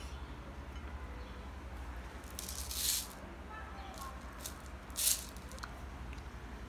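Sprinkles shaken from a plastic shaker jar onto chocolate-coated strawberries: two short shakes, about two and a half seconds in and again about five seconds in, with a few light ticks between.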